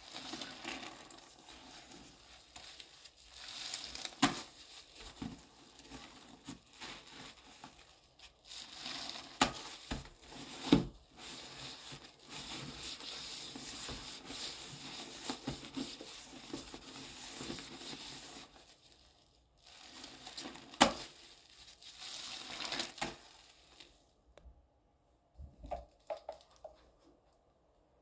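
A sponge being squeezed and worked through thick foamy paste in a sink basin: wet crackling and squelching with a few sharper pops. The crackling stops about four seconds before the end, leaving only a few faint taps.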